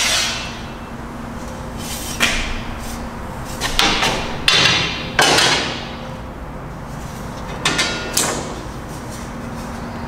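Irregular metallic knocks and clanks, about seven in all and some in quick pairs, each ringing briefly, as an aluminium door seal is handled and fitted against a truck body's steel frame. A steady low hum runs underneath.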